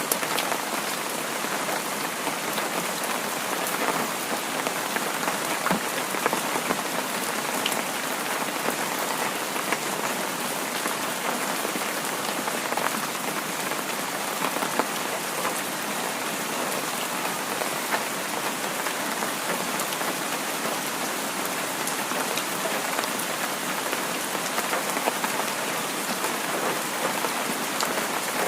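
Heavy rain falling in a steady, even hiss, with scattered little drop ticks.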